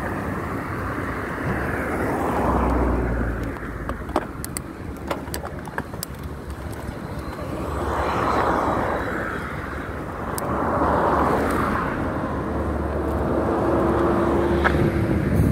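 Wind rushing over the microphone of a moving mountain bike, with several vehicles passing by on the road. Around the middle there are a few sharp rattling clicks from the bike.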